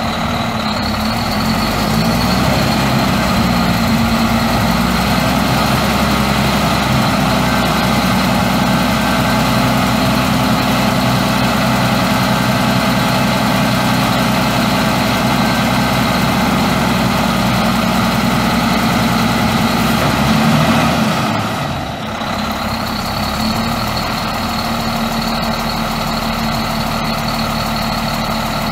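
Cummins M11 10.8-litre inline-six turbo diesel of a Terex TA30 articulated haul truck running steadily while its hydraulic hoist raises the dump body, with a steady high whine over the engine. About three-quarters of the way through the sound dips briefly, the whine cutting out for a moment, then the engine runs on slightly quieter.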